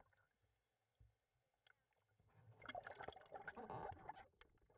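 Faint water sloshing and dripping at the surface. It starts about halfway through, broken by small ticks, in otherwise near silence.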